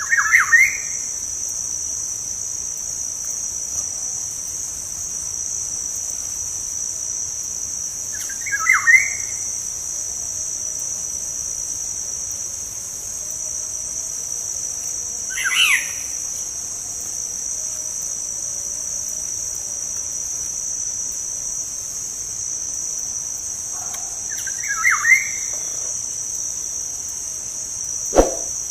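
Black-naped oriole (kepodang) giving four short calls spaced several seconds apart, over a steady high-pitched drone of insects. A short sharp knock near the end.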